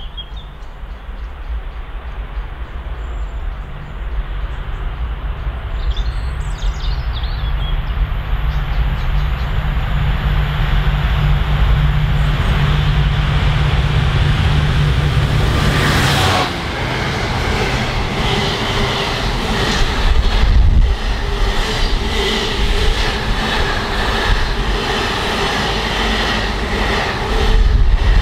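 Class 66 diesel locomotive, with its two-stroke V12, approaching and passing at speed with an intermodal container train. The engine's low hum grows steadily louder, peaks sharply as the locomotive goes by about halfway through, and gives way to the container wagons rumbling past with a rhythmic clatter of wheels.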